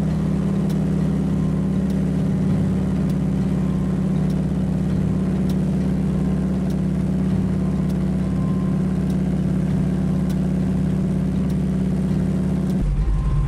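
Single-engine floatplane's engine and propeller running steadily, heard from inside the cabin. The engine note changes abruptly near the end.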